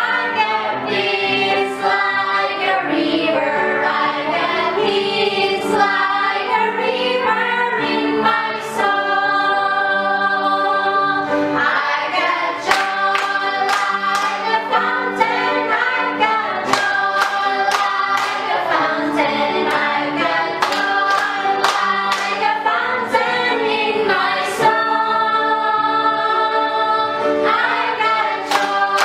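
A small group of men and women singing a cheerful gospel song together, with hand claps joining in time with the beat about halfway through.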